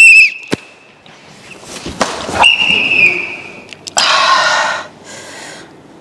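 A whistle blown in a short loud blast at the start and again in a longer steady blast about two and a half seconds in, with sharp knocks between and a loud, noisy burst about four seconds in.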